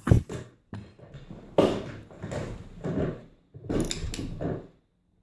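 Handling noise as a Union rim lock cylinder is taken apart: a sharp knock at the start, then two stretches of scraping and rubbing.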